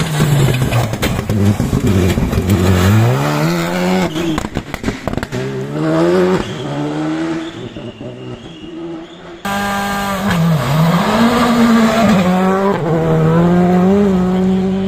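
Rally cars passing one after another on a tarmac stage, their engines revving high and dropping repeatedly through quick gear changes. A rapid crackle of pops comes from the first car about four seconds in, as it comes off the throttle.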